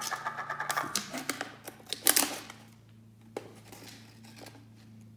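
Foil seal being peeled and torn off the top of a cardboard tube of stacked potato crisps, crinkling in quick little clicks, with a sharper tearing rip about two seconds in.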